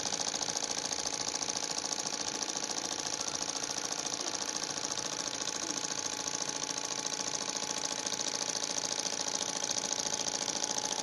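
Small model Stirling engine running steadily: a rapid, even mechanical clatter.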